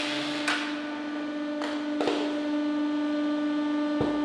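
Hydraulic press pump humming steadily while a spike pushes down into a cheap motorcycle helmet's plastic shell. The shell gives sharp cracks about half a second in, twice around two seconds in, and again near the end.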